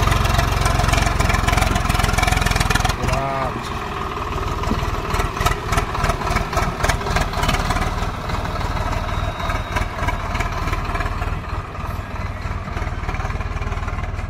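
Swaraj 744 FE tractor's three-cylinder diesel engine running and pulling a heavily loaded trolley, its level pulsing unevenly for a few seconds in the middle.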